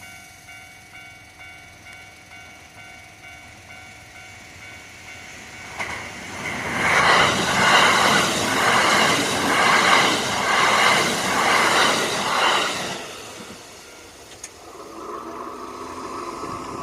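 Japanese level-crossing bell ringing in a steady kan-kan rhythm, then a train runs over the crossing from about six seconds in for some seven seconds, its wheels clacking over the rail joints in an even beat.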